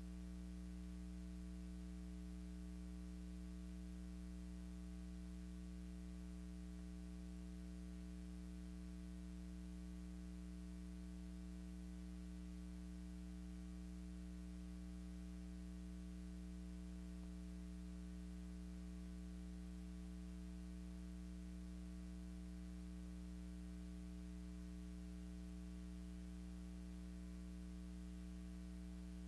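Steady low electrical hum with a faint hiss and no other sound: mains hum on the audio track of a silent film transfer.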